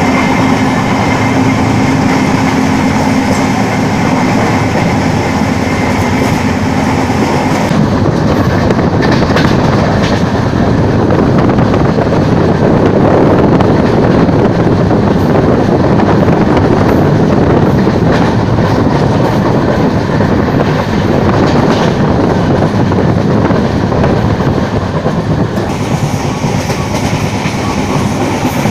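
An LHB passenger coach running at speed, heard from on board: a steady, loud rumble of wheels on the track. The higher hiss drops away about eight seconds in and returns a few seconds before the end.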